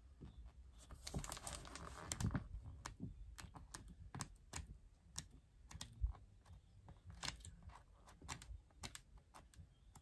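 Pages of a 12-by-12-inch paper pad being flipped one after another: a run of light paper flicks and ticks at an uneven few per second, with a longer rustle of paper about a second in.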